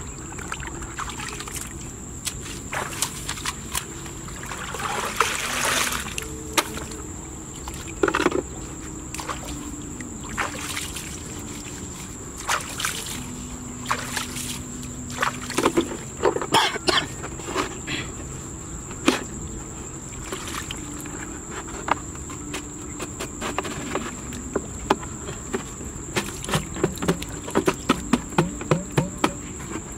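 A steady high-pitched insect drone, with irregular splashes and sloshing of muddy water and knocks of a plastic bucket as hands scoop mud and handle a bucket trap; the splashes come in quick runs about halfway through and near the end.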